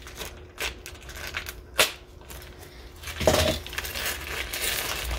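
New sprocket bolts, nuts and lock tabs clicking and clinking against each other in a plastic bag as it is handled. From about three seconds in, the plastic bag crinkles.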